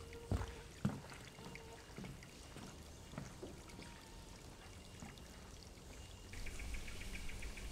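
Water trickling, with several plopping drips early on that thin out. About six seconds in, it changes abruptly to steady, rapidly pulsing insect chirping.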